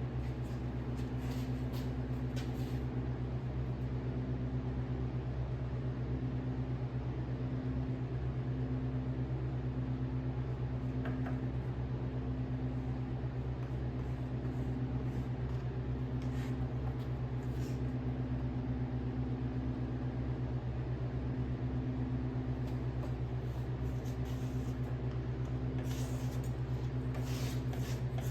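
A machine running steadily with a low, even hum that holds the same speed and load throughout, with a few faint ticks near the start and end.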